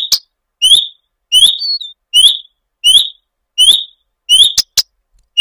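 Common redstart calling: a short whistled note repeated steadily about every three quarters of a second, with a few sharp ticks in between.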